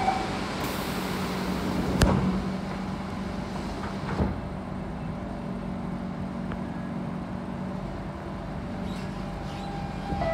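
Sliding doors of an SMRT C651 Siemens train closing with a sharp thump about two seconds in, then a smaller knock about two seconds later. Under them the stationary train gives a steady low hum.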